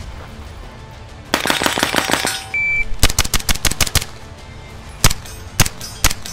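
A burst of rapid automatic fire from an MP5-type 9mm submachine gun, then a short high beep, a fast string of about ten shots and three single shots about half a second apart, with background music underneath.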